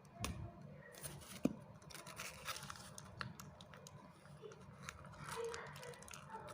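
Faint, scattered clicks, taps and light rustling of hands handling plastic fish bags and containers.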